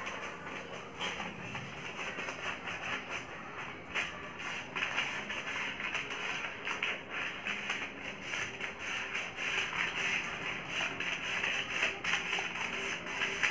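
Scissors cutting through a strip of folded newspaper, the paper crackling and rustling with many small snips.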